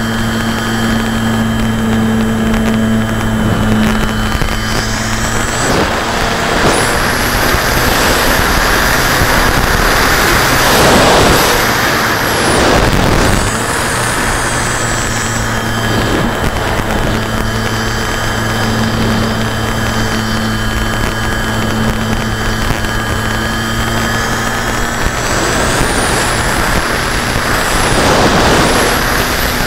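RC model airplane's motor and propeller running, heard through the plane's onboard camera, with a steady low drone and a loud rush of air. The rush swells twice, for several seconds about a fifth of the way in and again near the end.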